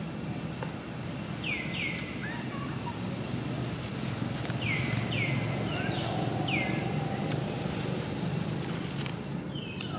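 Outdoor ambience with a steady low rumble. A handful of short bird calls slide downward in pitch, in pairs and singles, through the middle of the stretch and once more near the end.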